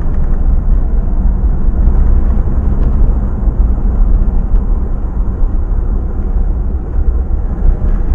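Steady rumble of a moving vehicle, with heavy low wind buffeting on the microphone covering any engine note.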